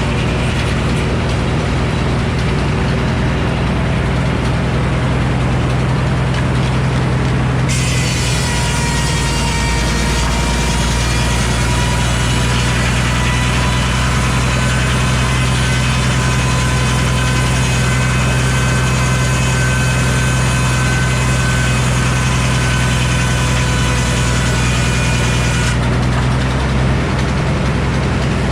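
Frick sawmill running steadily under its engine drive; about 8 seconds in the circular blade enters the white oak log and cuts, adding a high singing whine and hiss that lasts until about 26 seconds, when the blade runs free again.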